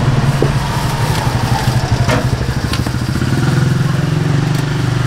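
Motor scooter engine running, its low pulsing note swelling about three and a half seconds in, with a few light clicks.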